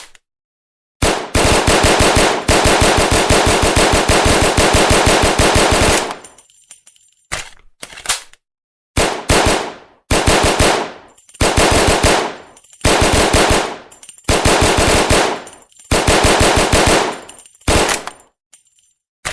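Thompson submachine gun firing on full auto: one long burst of about five seconds, then a couple of short clicks, then a string of shorter bursts of about a second each.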